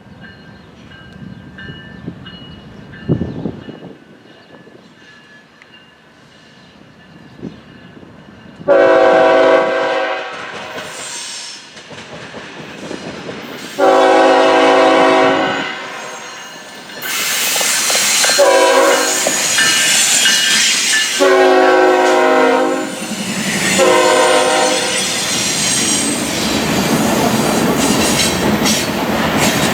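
Diesel freight locomotive's multi-chime air horn sounding the grade-crossing signal, long, long, short, long, then one more short blast. The train comes closer and passes loudly, with wheels clattering over the rail joints and squealing.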